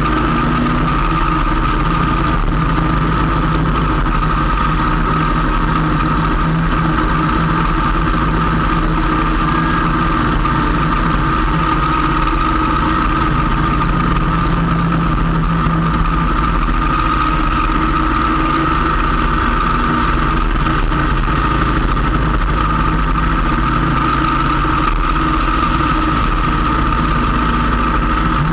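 Motorcycle engine running at a steady cruise, with road and wind noise, picked up by a camera mounted on the bike. A constant high whine runs over the engine hum with no change in level.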